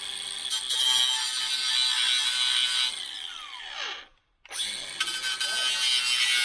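Cordless angle grinder cutting a steel plate, running at full speed with a high whine. About three seconds in it is let off and winds down with a falling whine, goes silent for a moment, then starts again and cuts on.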